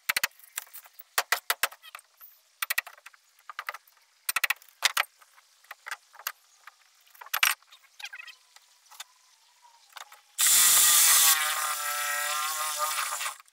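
A string of sharp clicks and knocks from hand tools working at the boat's floor. About ten seconds in, a reciprocating saw starts up and runs loudly for about three seconds, cutting into the floor.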